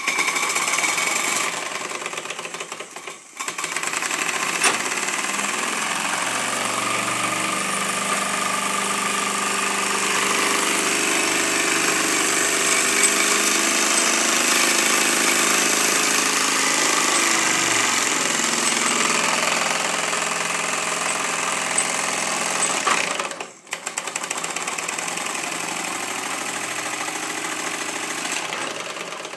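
Model steam traction engine (Markie 1-inch-scale road locomotive) running on steam, its cylinder and motion making a rapid mechanical beat with a steady hiss of steam. The engine speeds up about seven seconds in and slows again around eighteen seconds, and the sound briefly dips twice.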